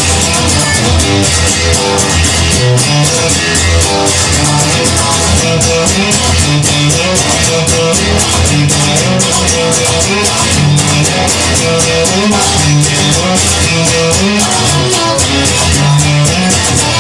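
Rock band playing an instrumental passage with guitar, bass and a drum kit keeping a steady beat, without singing.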